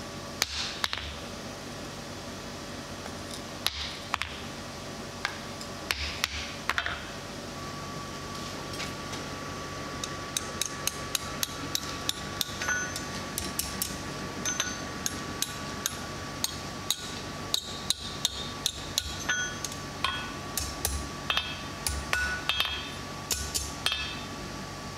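Blacksmith's hand hammer striking red-hot mild steel on an anvil, with metallic clinks and ringing. There are a few separate blows at first, then from about ten seconds in a quick run of lighter strikes, roughly three a second, as the bar is bent into a scroll over a bending tool in the anvil.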